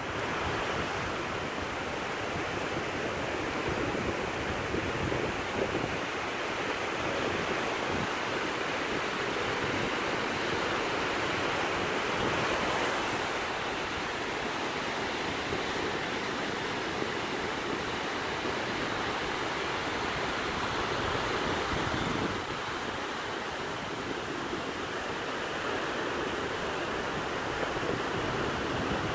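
Sea surf washing onto a sandy beach in a steady rush, with wind buffeting the microphone in uneven low rumbles.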